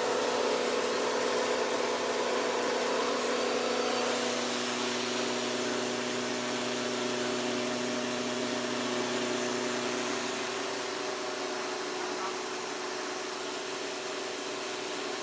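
Small household rice mill running with a steady machine hum; its tone shifts slightly about four seconds in and again near ten seconds.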